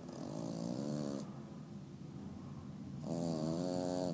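French bulldog snoring in its sleep: two drawn-out snores about two seconds apart, each a wavering pitched rasp with a wheezy hiss.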